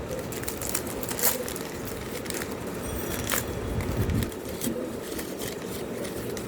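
Paper and plastic wrapping being handled, crinkling and rustling with scattered small clicks and crackles.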